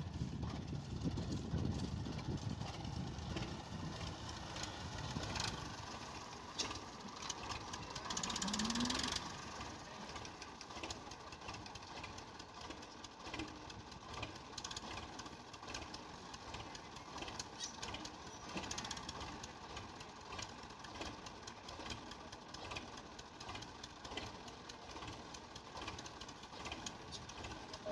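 Tractor engine running steadily while driving a straw chopper that is making chopped straw, with a steady mechanical whine over the engine. It is louder for the first few seconds, and a brief rushing burst with a short rising tone comes about eight seconds in.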